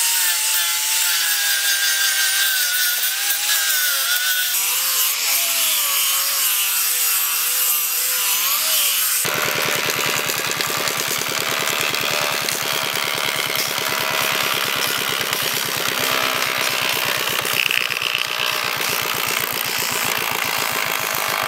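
An angle grinder with a sanding disc whines against a wooden board, its pitch wavering as it is pressed into the wood. About nine seconds in it gives way to a motorized wood planer cutting boards fed through it, a dense, fast, even rhythmic noise.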